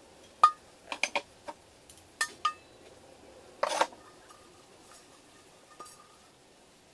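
Old metal frying pans knocking and clanking together as they are lifted from a stack: a string of sharp knocks with brief metallic ringing in the first three seconds, then a longer, louder clatter a little before four seconds in.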